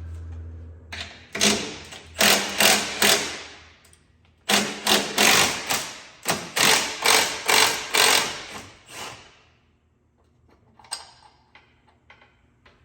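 Metal hand tools working on steel bolts: two runs of sharp metallic strokes, about two or three a second, the first of about five and the second of about ten, then a few faint clicks near the end. A low steady hum stops about a second in.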